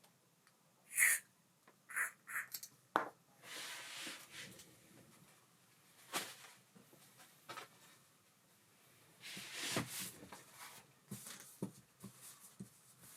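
Small metal parts of an Ambassadeur 5500C baitcasting reel being handled on a workbench: scattered light clicks and clinks, with two brief rubbing or swishing sounds.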